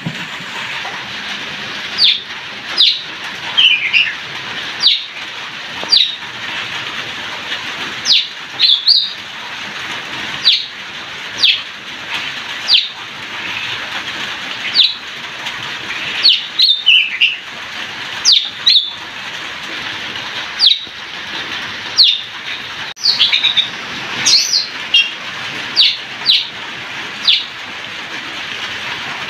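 Oriental magpie-robin (kacer) giving repeated short, sharp chirps, about one every second, over the steady hiss of light drizzle.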